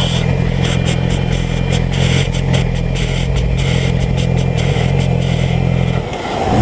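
2007 Yamaha YZF-R6's 600 cc inline-four running steadily at low revs as the bike rolls slowly, with light clatter; the engine note cuts off suddenly about six seconds in.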